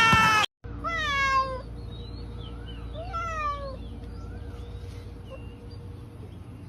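A cat meowing twice, about two seconds apart, each meow falling in pitch, with faint short chirps afterward over a low steady hum.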